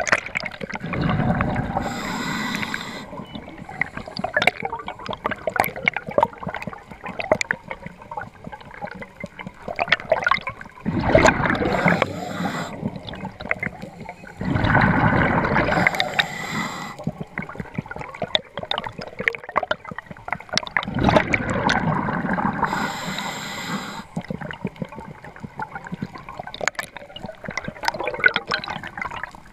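Scuba regulator breathing heard underwater: four long bubbling surges of exhaled air, each ending in a brief hiss, with steady crackling clicks in the water between them.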